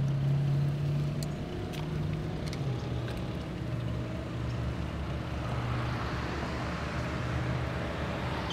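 Road traffic on an adjacent street: a steady low engine hum, with a vehicle's tyre and engine noise swelling as it approaches in the second half. A few light clicks early on come from brass test fittings being handled.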